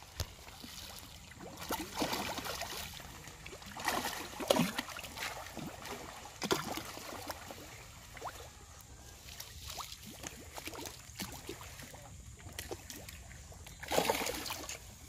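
Fish splashing and sloshing at the water's surface as they take feed at a pond edge, in irregular splashes with louder ones about four seconds in and near the end.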